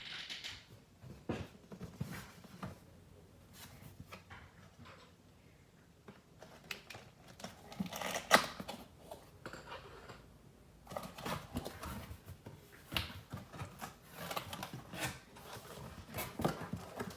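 A cardboard box and its packaging being opened and handled: scattered rustles, scrapes and clicks, loudest about eight seconds in.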